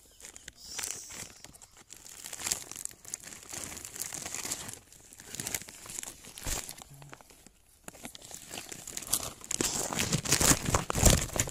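Irregular crackling and rustling of hands scrabbling through dry leaves, twigs and soil while digging into a crab burrow in a mud bank, growing denser and louder near the end.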